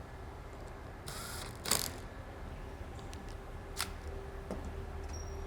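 Hand-fitting of circular saw parts: a short scrape about a second in, a sharp click just after it, and another click near four seconds, over a faint steady hum.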